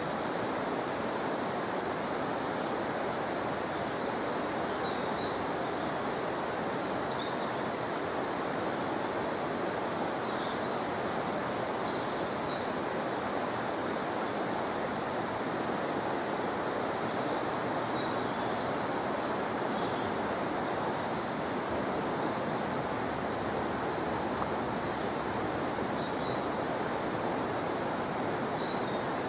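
Steady rush of flowing river water, with small birds chirping faintly now and then.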